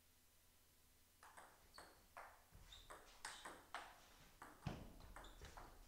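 Table tennis ball clicking back and forth between the rackets and a Donic table in a rally, starting about a second in, two to four clicks a second. One heavier low thump comes near the end.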